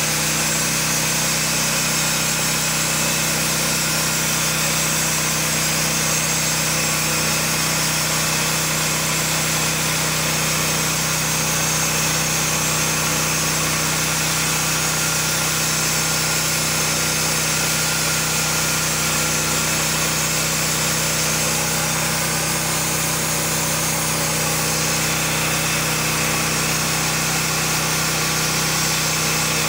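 Honda GX gasoline engine of an SMG Champion portable bandsaw mill running steadily at high speed, driving the band blade through a log. The engine note holds one even pitch throughout, with a constant hiss of sawing above it.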